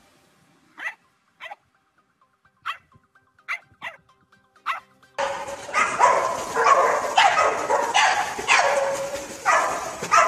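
Dog barking: a handful of short, separate barks, then about five seconds in a sudden louder run of rapid barking.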